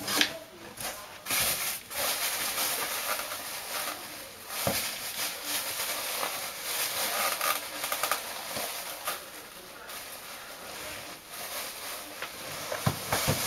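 Packaging being handled while a subwoofer is unpacked from its box: plastic and cardboard rustling and crinkling, with a few knocks.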